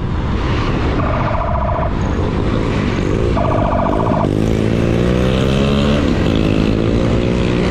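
Motorcycle engine running with wind rushing over the microphone, two flat horn blasts about a second long each, then the engine revving up as the bike accelerates.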